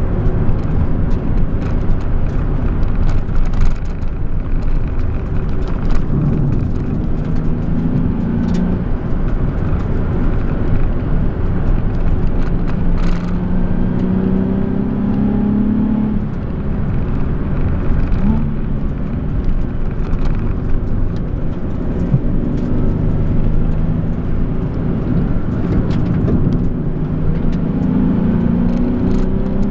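Nissan 370Z's 3.7-litre V6 heard from inside the cabin, pulling through a winding road with heavy road and tyre noise. The engine note climbs under acceleration several times and drops away each time the throttle is lifted.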